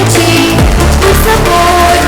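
Loud music with a heavy bass line and a steady beat, held melodic notes over it.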